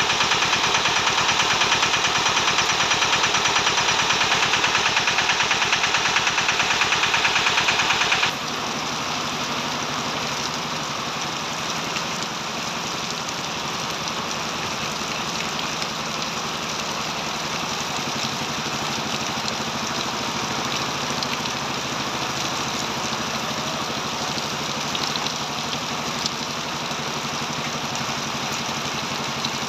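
An engine running close by with a rapid, even beat, mixed with heavy rain. About eight seconds in it gives way suddenly to the steady hiss of heavy rain falling on water, with a quieter engine hum underneath.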